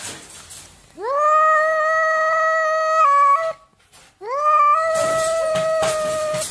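Domestic cat giving two long, drawn-out meows, the first about a second in and the second about four seconds in. Each slides up in pitch at the start and then holds a steady note.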